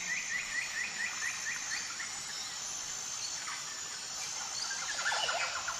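Forest ambience sound effect: a steady high insect drone with birds chirping in quick repeated series, one series in the first two seconds and another near the end.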